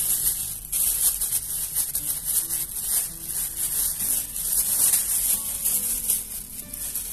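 A steady high hiss, pulsing slightly, over faint background music.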